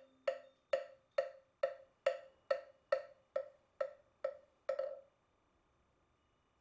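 Moktak (Korean Buddhist wooden fish) struck with a mallet in a steady chant rhythm, about two hollow, pitched knocks a second. It stops about five seconds in.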